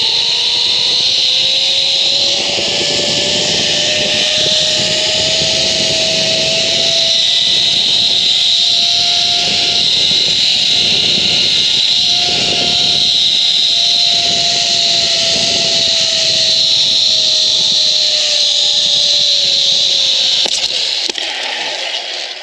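Zipline trolley pulleys running along a steel cable at speed. It makes a whine that climbs in pitch over the first several seconds, holds, then slowly falls, over a loud steady rushing hiss. The sound drops away near the end as the trolley slows.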